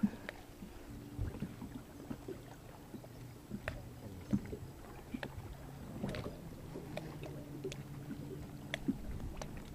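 Small boat sitting on the water: faint lapping and scattered light knocks and clicks against the hull and from rod handling. A faint steady low motor hum comes and goes.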